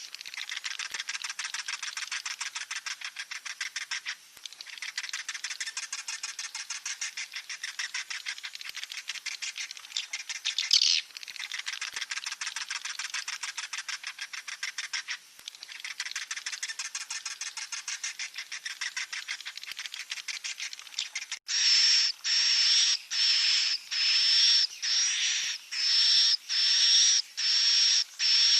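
Swiftlet chicks calling: a fast, continuous buzzing chatter of rapid clicks. About two-thirds of the way through it changes to louder, separate high chirps, nearly two a second.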